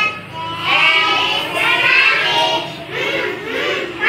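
A class of young children reciting phonics letter sounds together in a sing-song chant, in short phrases with brief pauses between them.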